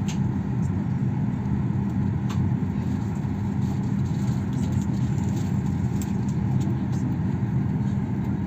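Steady low rumble of an airliner cabin on the ground, from engine and air-system noise heard from a window seat.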